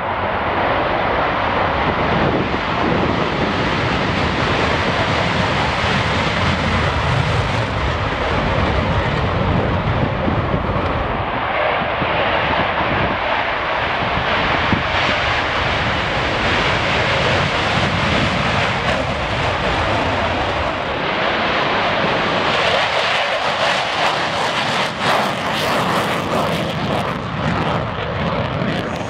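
Military fighter jet engines at high power during takeoff and climb-out: a loud, steady rush of jet noise with no let-up, and some crackle in the last few seconds.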